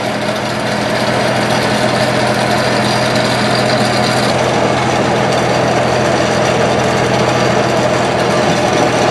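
Fire tanker's engine running steadily, its low hum easing about four seconds in, over a steady rushing noise.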